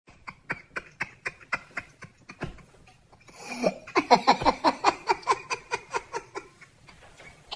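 A woman laughing in short rhythmic bursts, about four a second. Breathy giggles come first, then louder, fuller laughter from about three and a half seconds in, which trails off near the end.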